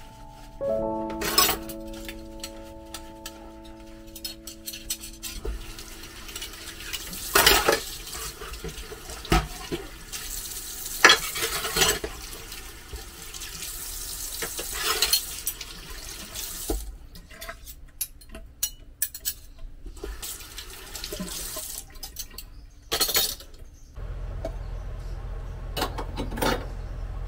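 Dishwashing at a stainless steel kitchen sink: tap water running into the basin, with dishes and utensils clinking and knocking as they are scrubbed and set down.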